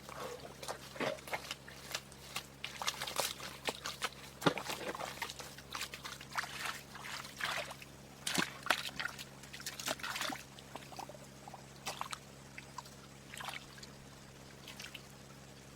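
Irregular splashing and sloshing of water: a string of short, sharp splashes that thins out near the end.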